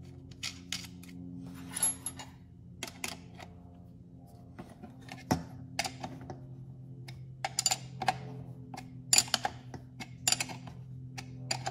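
Irregular metallic clicks and clinks of a small wrench and nuts against the steel bracket and studs of a brake booster as lock nuts are turned down, with a steady low hum underneath.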